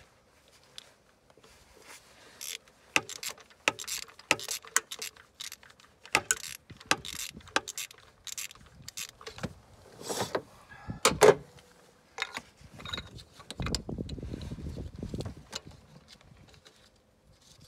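Ratchet wrench clicking in short, irregular runs as it turns a spark plug out of its deep plug well.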